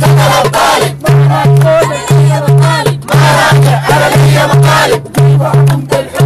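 A crowd singing and chanting a Sudanese protest song over music with a steady, quick beat, about two to three beats a second.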